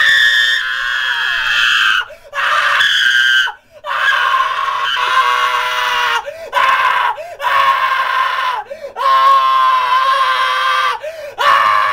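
A young man screaming after being startled: a string of about seven long, high-pitched screams, each broken off by a short pause for breath.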